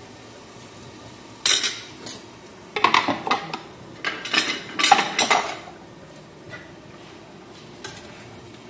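Stainless steel pots and a metal lid clattering on a gas stove, in three clusters of clinks and knocks with one lighter tap near the end.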